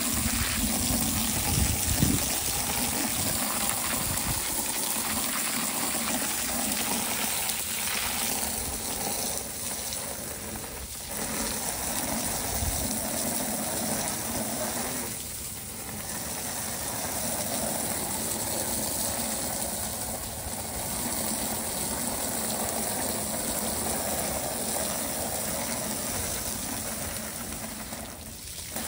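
Hard jet of water from a garden hose nozzle spraying onto a pool filter and splashing off the concrete: a steady rushing hiss that dips briefly a few times as the spray moves.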